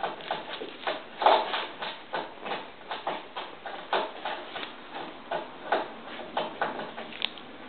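Animals crunching and chewing corn kernels: a run of short, crisp crunches at irregular spacing, about two to three a second.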